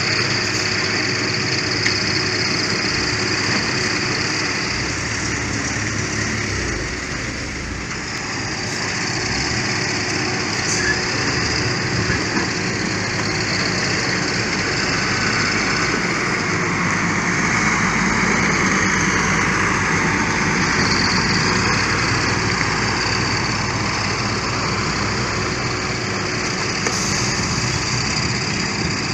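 Engines of concrete road-construction machinery running steadily, with a constant hum under the noise, dipping slightly about eight seconds in.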